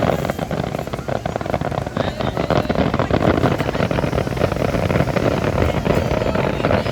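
Fireworks crackling densely and without pause over a low rumble.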